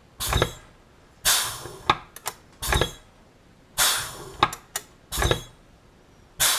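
Pneumatic rivet squeezer with dimple dies dimpling rivet holes in thin aluminium sheet, cycling about three times. Each stroke is a hiss of air with a low clunk of the dies, followed by a few light metallic clicks as the sheet is moved to the next hole.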